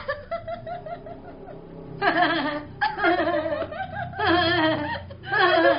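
Laughter in several loud bursts, each falling in pitch, after a quieter first second and a half.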